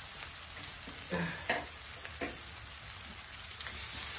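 Meat and green vegetables frying in a hot wok, a steady sizzling hiss.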